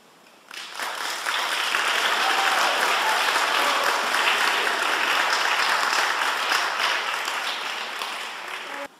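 Audience applauding: the clapping starts about half a second in, swells quickly to a steady, dense applause, and cuts off suddenly just before the end.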